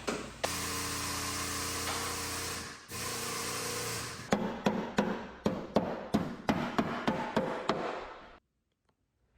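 Hammer blows at first, then a steady power-tool-like noise with a hum in it for about four seconds, then hammering again at about three blows a second until it cuts off abruptly.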